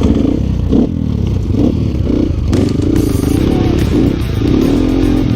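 Trail motorcycle engine revving up and down at low speed, its pitch rising and falling, then holding steadier near the end.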